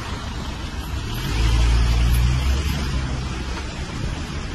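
A motor vehicle's engine passing close by on the street, a low hum that swells about a second in and fades after about three seconds, over general traffic noise.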